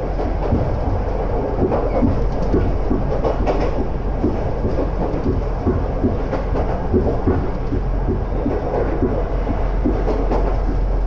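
Interior of a former Tokyu electric railcar running at speed: a steady rumble of wheels on rail, with frequent irregular clacks and rattles from the track and carriage.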